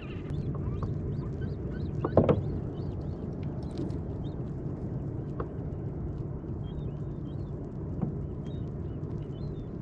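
A steady low wash of water around a kayak, with a sharp knock about two seconds in and a few lighter knocks later as a small blue rockfish is handled on board. Faint short high chirps come and go throughout.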